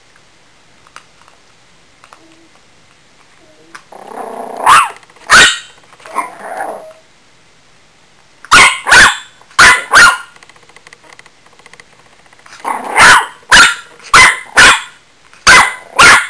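Yorkshire terrier puppy growling and barking angrily at a ferret eating from its food bowl. A short growl about four seconds in leads into two sharp barks, followed by a second growl. Then come two more runs of barks, four and then six, each run opening with a growl.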